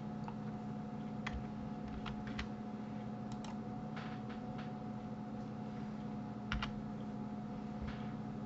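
Scattered clicks of a computer keyboard and mouse, about a dozen at irregular intervals with a pair close together near the middle, over a steady low electrical hum.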